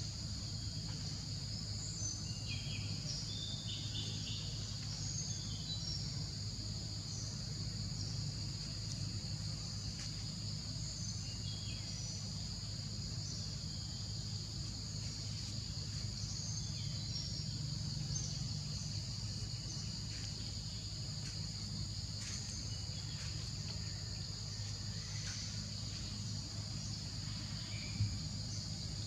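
Steady high-pitched insect chorus, a continuous shrill drone at two pitches, with scattered short bird chirps and a low steady hum beneath. One brief click near the end.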